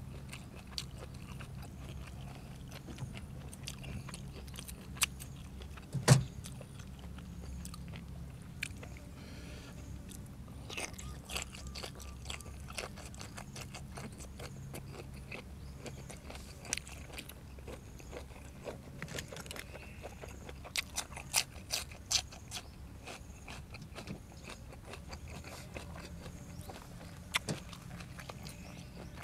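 A person chewing and crunching food close to the microphone, with scattered short clicks and one sharper knock about six seconds in, over a steady low rumble.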